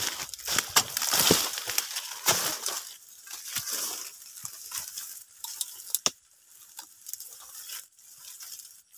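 Dry oil palm fronds and dead grass rustling and crackling underfoot as someone pushes through them, loudest in the first few seconds, with scattered sharp clicks and one sharp knock about six seconds in.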